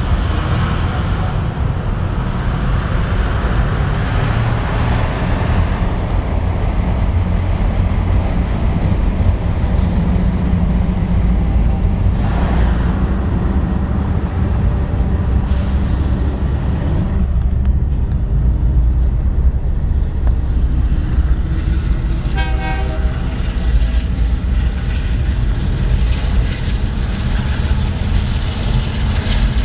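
Steady low rumble of a vehicle running, with one short horn toot about three-quarters of the way through.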